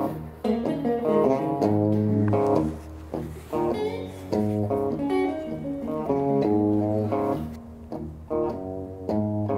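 Background music: a plucked guitar playing short melodic phrases over sustained low bass notes.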